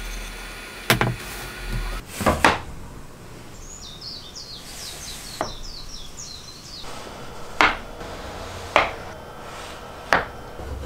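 Workshop handling sounds: tools and wood being set down and shifted on a plywood crosscut sled, giving about seven sharp knocks and clicks. A string of short high chirps sounds in the middle.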